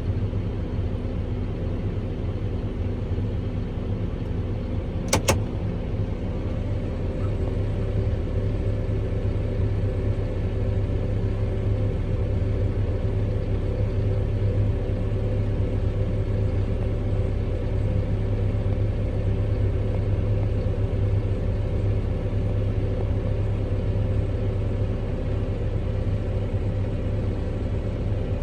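Kubota M7-172 tractor's diesel engine working steadily under load together with the pull-type forage harvester it drives, a constant low drone. A single sharp click about five seconds in.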